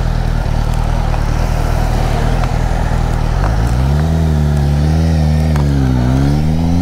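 Motorcycle engine and wind noise while riding. A few seconds in, the engine note comes through clearly and falls and rises as the revs change.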